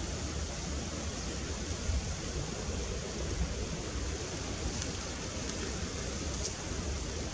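Steady outdoor rushing noise over a fluctuating low rumble, with two faint brief ticks in the second half.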